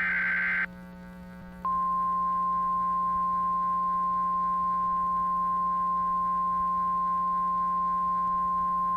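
A burst of digital SAME header data ends just under a second in. About a second later a single steady NOAA Weather Radio alert tone at 1050 Hz starts and holds, over a low steady hum. It is the signal that a warning broadcast is about to follow.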